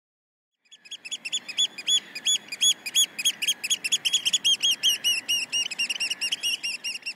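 A bird singing a rapid run of clear, arching chirps that starts about a second in, about three notes a second at first and quickening to about five a second, over faint background noise.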